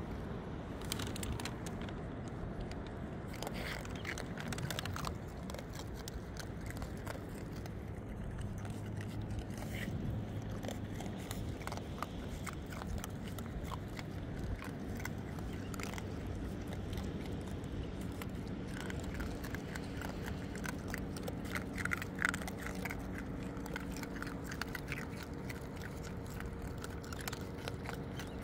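Several raccoons crunching and chewing dry kibble, with many small crisp crunches and clicks, over a steady low background rumble.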